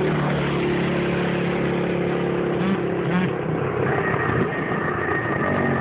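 ATV engines running: a steady, lower engine note, then about two-thirds of the way in a higher, held engine note, as of a quad revving up.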